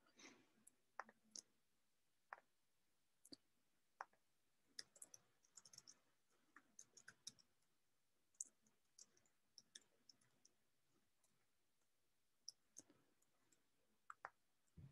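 Faint, irregular clicks of typing on a computer keyboard, with mouse clicks, over near silence.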